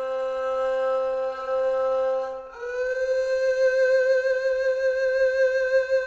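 Melodic phrase from the Sonuscore Ethnic String Phrases sample library. A held string note breaks off about two and a half seconds in, and a higher note slides up into pitch and is held with vibrato.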